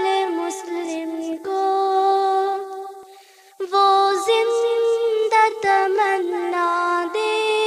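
A single voice singing an Urdu devotional poem without accompaniment, in long held notes that bend in pitch. The voice fades out about three seconds in and comes back half a second later.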